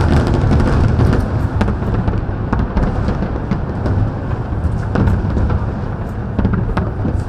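Fireworks display going off: a dense run of sharp bangs and crackles over a continuous low rumble.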